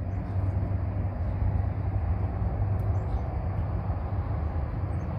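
Steady low outdoor rumble with no distinct events, the even background noise of an open-air site.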